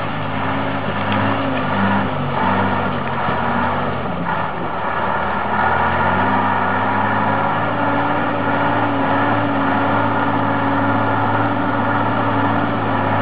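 Engine of a loaded Ural log truck working hard as it drives through deep mud and water. Its pitch shifts about four seconds in, then holds steady.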